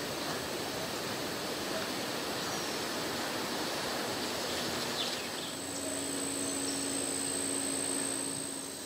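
Steady hiss of woodland outdoor ambience with a few faint high chirps. About halfway through, a steady high-pitched insect buzz joins, along with a faint low hum.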